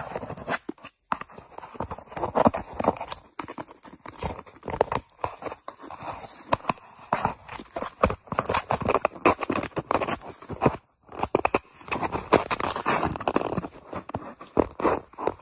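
A cat biting and chewing at the torn edge of a hole in paper, giving rapid, irregular crunching and tearing crackles that come in short bursts.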